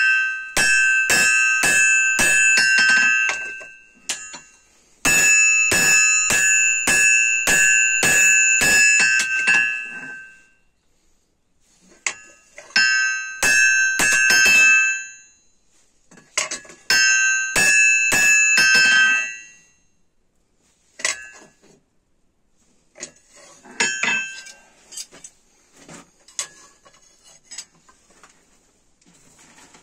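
Blacksmith's hand hammer forging a red-hot leaf-spring steel cleaver blade on an anvil: runs of sharp blows, each with a bright metallic ring from the anvil. The blows come in four runs separated by short pauses, then become scattered, lighter taps near the end.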